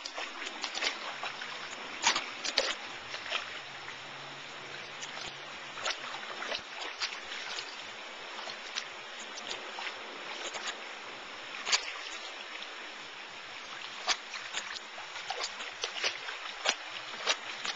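Irregular small sharp splashes and slurps at a koi pond's surface, from a dog's muzzle dipping into the water among crowding koi, over a steady wash of running pond water.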